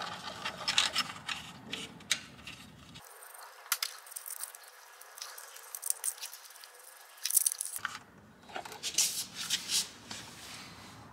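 Paper template rustling and crinkling in short, irregular bursts as hands press it over engine mount bolts.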